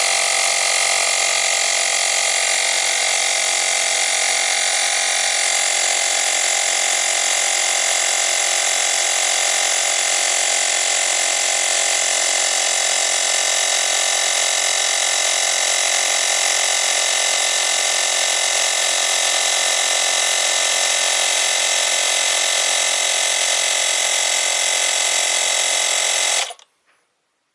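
Motopressor Minipump, a small digital electric tyre inflator, running loud and steady as it pumps up a road bike tyre, then shutting off by itself near the end once the tyre reaches its preset pressure.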